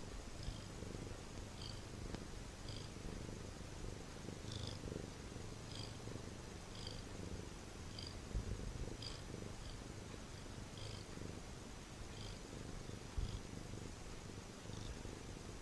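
Domestic cat purring steadily close to the microphone, a low continuous rumble. Faint short high chirps repeat about once a second in the background.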